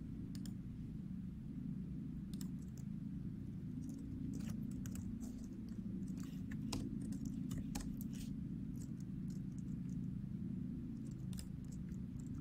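Scattered computer keyboard keystrokes and clicks, irregular and sparse, over a steady low hum.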